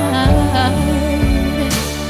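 Music: a slow song with sustained notes over a bass line that shifts note a few times.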